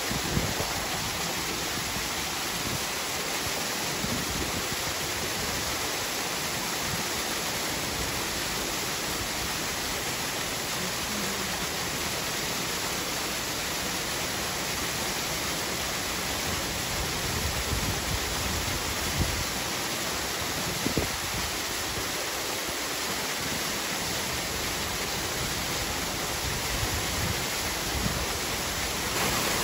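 Steady rushing of water pouring into a polar bear enclosure's pool, an even hiss with no break, with a few soft low bumps near the middle.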